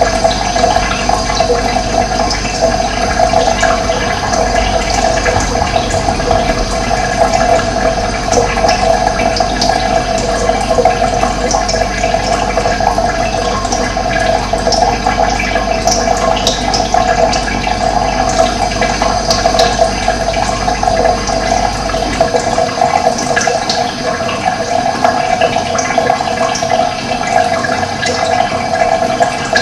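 Steady rushing of running water, with short bird chirps scattered over it. A low rumble underneath stops about three-quarters of the way through.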